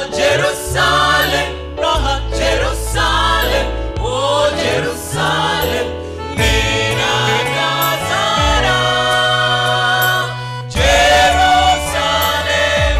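Swahili gospel choir of men and women singing into microphones, over a bass accompaniment that steps from note to note.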